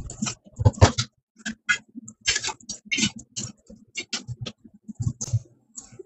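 Thick ice crunching and cracking as it is broken and lifted off a frozen-up walk-in cooler evaporator coil, a quick irregular run of sharp clicks and crunches.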